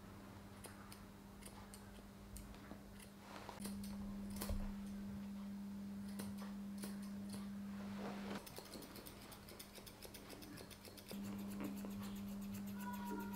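Curved grooming scissors snipping the hair on a poodle puppy's face: short metallic clicks, scattered at first, then a quick, close-spaced run of snips from about the middle on. A steady low hum comes and goes underneath.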